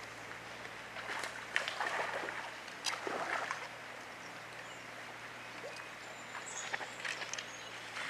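Hooked trout splashing at the water's surface in short, irregular bursts: about a second in, again around three seconds, and once more near the end.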